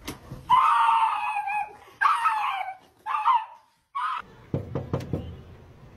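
A dog giving four high-pitched cries, the first drawn out for about a second and the others shorter, followed by a few soft thumps.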